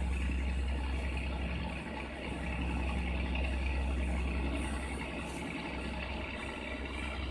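Steady low drone of a passenger ferry's engine running under way, heard from the open deck, with wind rumbling on the microphone.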